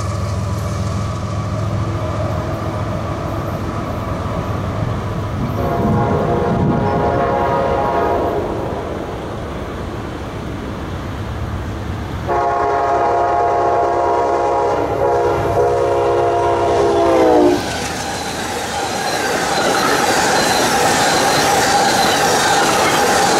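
Amtrak Northeast Regional passenger train approaching and passing: its locomotive horn sounds a shorter, fainter chord about six seconds in, then a louder long chord that sags in pitch as it cuts off about seventeen seconds in. The rumble and clatter of the train's wheels on the rails then build as the coaches pass close by.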